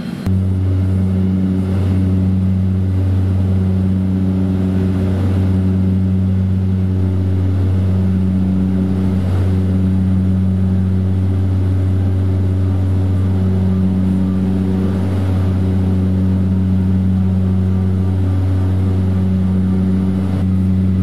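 Small floatplane's engine and propeller drone heard inside the cabin in flight: a loud, steady low hum with a slow, even rise and fall.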